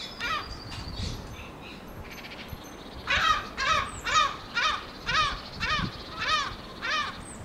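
A crow cawing over and over at about two caws a second, the run of caws starting about three seconds in.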